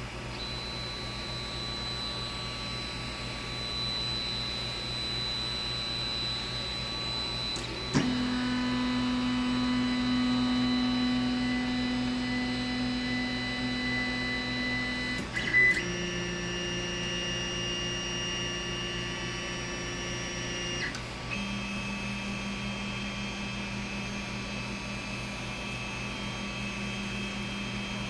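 Creality Ender 5 Plus 3D printer running, its stepper motors whining in steady tones that jump to new pitches three times as the moves change, over the steady hum of its fans. A brief click comes at the first two pitch changes.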